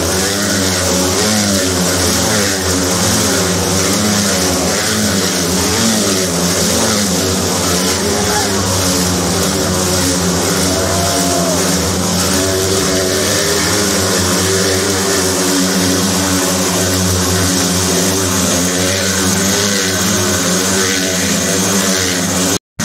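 Several motorcycles riding round inside a steel-mesh globe of death, their engines running together in a continuous loud drone whose pitch keeps rising and falling as the riders speed up and ease off.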